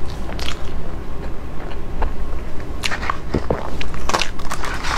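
Close-miked eating mouth sounds: chewing soft, creamy cake with wet lip smacks, heard as an irregular string of short, sharp smacks.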